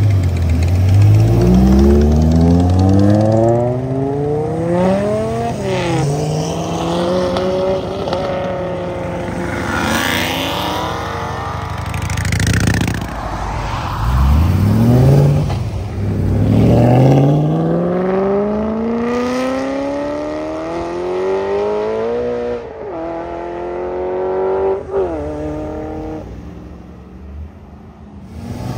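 Modified cars accelerating away one after another. Each engine's pitch climbs steadily, drops suddenly at an upshift, then climbs again.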